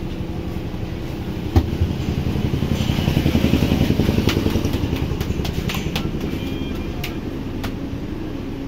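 A motorcycle engine running close by, growing louder over a few seconds and then fading away, with a sharp knock about a second and a half in.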